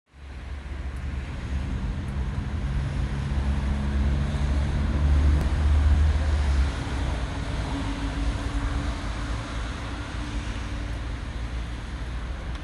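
Street traffic: a motor vehicle's engine passes with a low rumble and hum, loudest about six seconds in, then eases off, over steady road noise.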